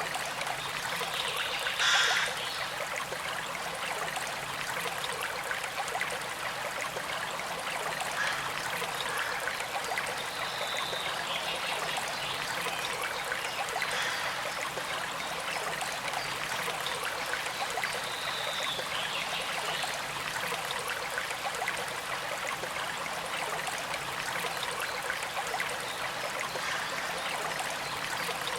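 Small creek flowing steadily, with a gentle trickle of water over stones; it swells briefly louder about two seconds in.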